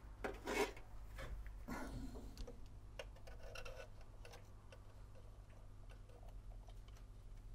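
Small clicks and rubbing from hands working inside a record player's metal chassis, fitting a rubber drive belt under a pulley. The handling noises are loudest in the first two seconds, then thin out into scattered ticks.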